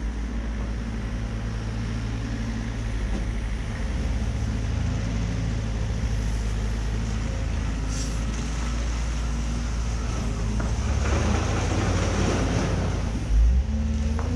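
Mini excavator's diesel engine running steadily under hydraulic load while digging. About two seconds of rushing noise come shortly before the end, followed by a thud.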